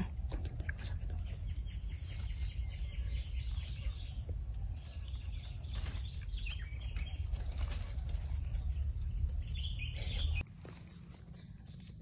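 Outdoor ambience with a steady low rumble on the microphone, scattered rustles and clicks from handling over dry leaf litter, and faint bird chirps. The rumble drops away abruptly near the end.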